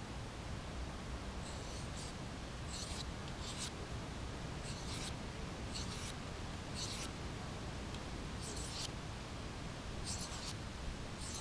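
Mora 746 knife edge stroked by hand along a handheld sharpening stone: about nine short, hissing scrapes, roughly one a second, as the edge is sharpened.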